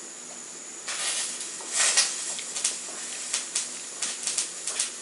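Light clicks and taps of a baby's fingers handling a small stainless steel pot while picking food out of it, with a couple of short rustling scrapes in the first two seconds.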